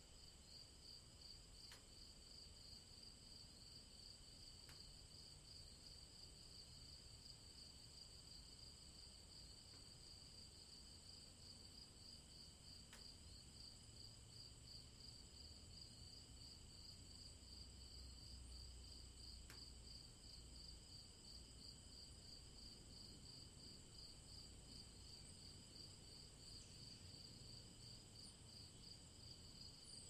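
A faint evening chorus of insects chirring steadily, several high trills overlapping, one of them pulsing rapidly.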